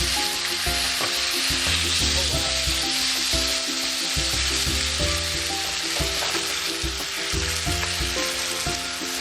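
Thinly sliced, seasoned beef sirloin frying in hot vegetable oil in a pan, with a steady sizzle.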